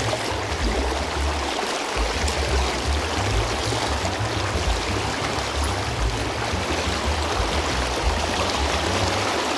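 Shallow river water rushing over a rocky riffle close to the microphone, a steady, unbroken wash of water noise.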